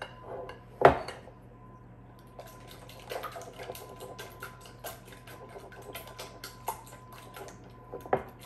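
Wire whisk beating an egg, milk and sour cream mixture in a glass bowl: quick, light clicks and scrapes of the whisk against the glass, several a second. A single louder knock comes about a second in.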